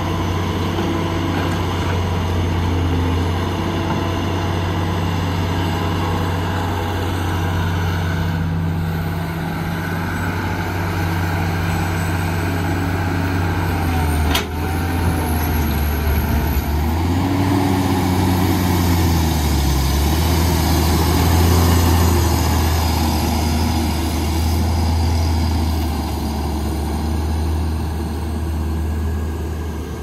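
Heavy construction machinery's diesel engine running steadily, its pitch dipping and coming back up once about two-thirds of the way through, with a single sharp click about halfway.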